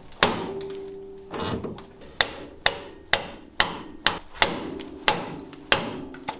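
A hammer striking a pickle-fork ball joint separator wedged at a car's upper front ball joint: about eight sharp metal-on-metal strikes, each ringing briefly, driving the fork in to break the ball joint loose from the spindle.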